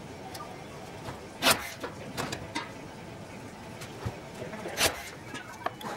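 Intermittent hand-work noises: two short swishing scrapes and a few light clicks over a steady low hiss.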